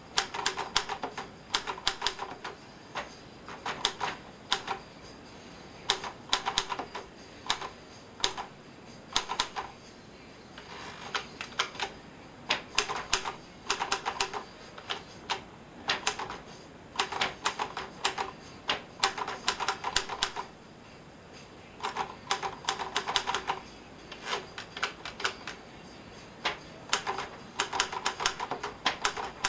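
1949 Hermes Baby portable manual typewriter being typed on: quick runs of sharp key strikes in bursts of a second or two, separated by short pauses.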